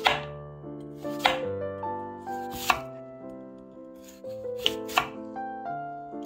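A santoku knife slicing through peeled raw potatoes and striking a bamboo cutting board: five sharp chops, irregularly spaced, the last two close together. Soft piano-like background music plays underneath.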